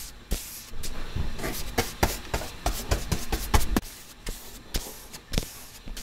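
A wide bristle brush swishing and scrubbing acrylic matte medium onto paper in quick, irregular strokes.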